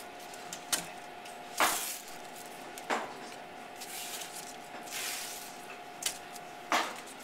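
Double-sided tape being pulled off its roll, peeling off in about half a dozen short ripping bursts as strips are laid on a wooden board. Under it runs a faint steady high hum that stops near the end.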